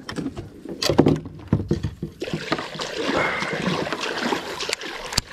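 A few knocks and bumps against a plastic kayak, then splashing and sloshing water from about two seconds in.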